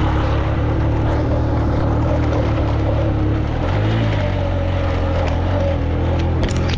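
Motorcycle engine running as the bike is ridden along, its note shifting a little past halfway through.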